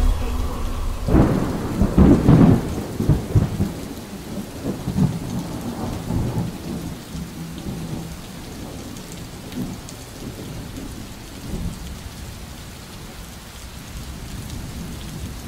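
Thunder rolling over steady rain: a loud low rumble starts about a second in and fades away over several seconds, leaving the even hiss of rainfall.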